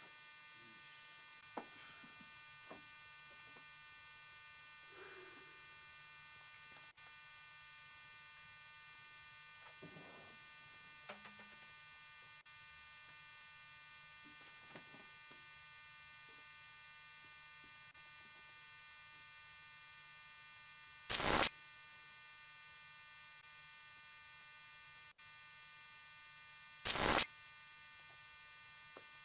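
Steady electrical hum and buzz, with two short, very loud bursts about six seconds apart near the end.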